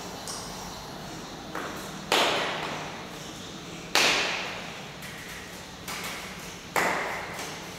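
Sharp knocks and clacks from a hand-worked drawing machine with a long wooden pole and frames: three loud ones about two seconds apart, with softer ones between. Each knock rings on with a room echo.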